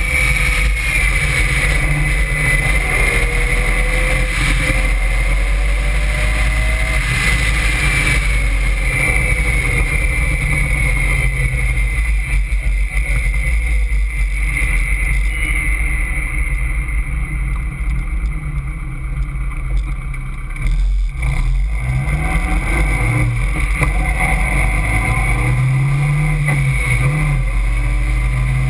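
Caterham Seven's engine driven flat out around a circuit, heard from the open cockpit through heavy wind rush; its note climbs and falls repeatedly with the throttle and gear changes. About three quarters of the way through it drops away briefly, then climbs again.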